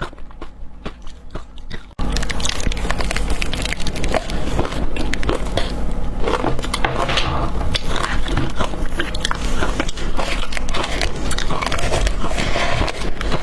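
Ice being bitten and crunched close to the microphone, in sharp, crackly cracks. About two seconds in, the sound cuts abruptly to a louder, denser stretch of crunching.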